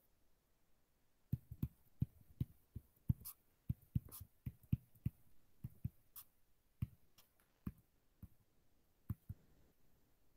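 Stylus tapping and knocking on a tablet screen during handwriting: a run of light, irregular sharp taps, several a second, starting about a second in and thinning out near the end.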